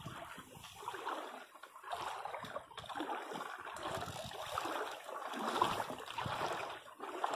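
Shallow river water sloshing and splashing irregularly around wading boots and a hooked fish being drawn onto the bank at the water's edge.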